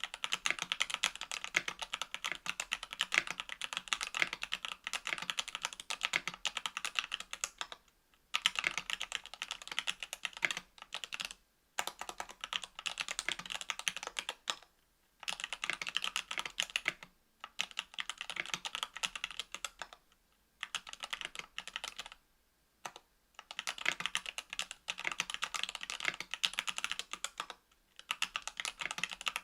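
Typing on a KBDfans Tofu 65% aluminium mechanical keyboard with stock Equalz C³ Macho 62 g linear switches, an aluminium plate and GMK keycaps: quick runs of keystrokes broken by short pauses.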